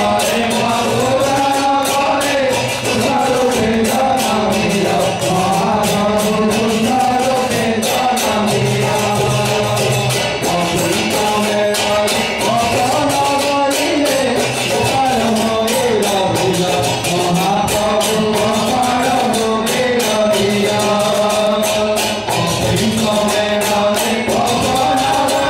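Devotional chorus sung by a group of men into microphones, a single melody carried in unison, with percussion keeping a steady beat.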